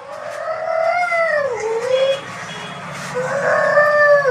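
An animal crying out twice in long, drawn-out calls that rise and then fall in pitch, each lasting one to two seconds.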